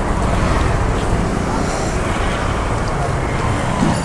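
Busy street noise: a steady rumble of road traffic with indistinct voices in the background.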